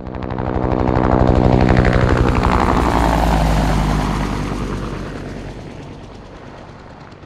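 Helicopter passing by, its rotor chop and engine whine swelling quickly, dropping in pitch as it passes about three seconds in, then fading away.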